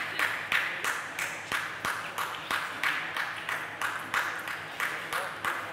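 Spectators clapping together in a steady rhythm, about three claps a second, over a general crowd hubbub in a large hall.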